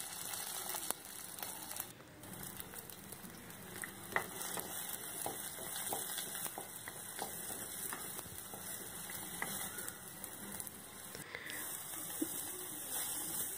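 Chopped onions, green chillies and curry leaves sizzling in oil in a clay kadai, with a steady hiss. Scattered short scrapes and taps come from a spatula stirring them.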